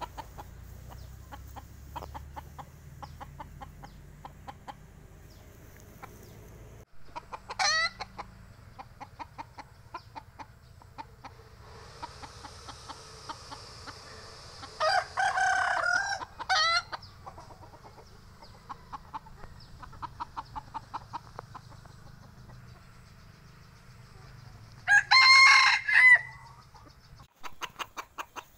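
Bantam rooster crowing twice, once about halfway through and again near the end. A shorter loud call comes about eight seconds in, and series of quiet clucks run between the calls.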